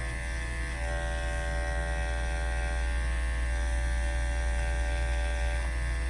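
Electric pet grooming clippers running with a steady buzz and hum.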